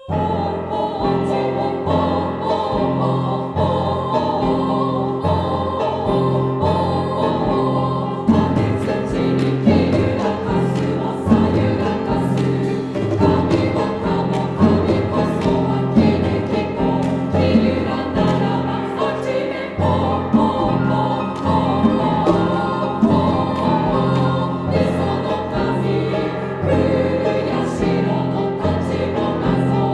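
Women's chorus singing, entering suddenly at full voice with instrumental accompaniment; from about eight seconds in, sharp percussion strikes join in and recur throughout.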